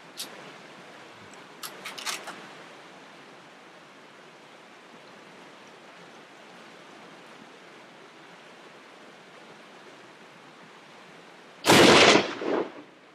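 A single loud hunting-rifle shot near the end, its report rolling on for about a second. Under it runs a steady faint outdoor hiss, with a few short clicks in the first couple of seconds.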